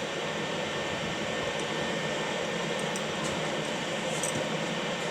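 Steady whir of the Qidi X-Max 3D printer's cooling fans running with the hot end at temperature, with a few faint ticks.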